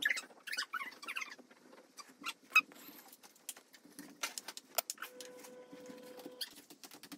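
Scattered light clicks and taps with faint rustling, and a faint steady hum lasting about a second and a half past the middle.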